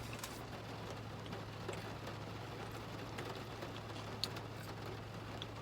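Rain falling on a car's roof and windshield: a steady hiss with scattered small drop ticks over a low steady hum.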